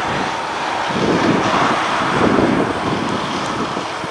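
Wind buffeting the microphone, gusting louder about a second in, over the distant rushing of an Airbus A320neo's Pratt & Whitney PW1100G geared turbofan engines on final approach.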